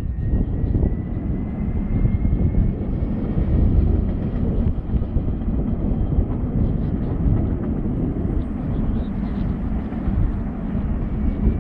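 Electric tram crossing a bridge, heard as a steady low rumble mixed with wind on the microphone, with a faint thin whine that rises slightly over the first few seconds and then holds.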